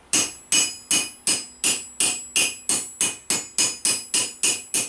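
Ball peen hammer striking the end of a steel rivet over a washer on a snap tool, a steady run of quick blows about three a second, each with a short metallic ring. The rivet is being peened round into a mushroom head while kept loose, to make a sliding rivet in armour plate.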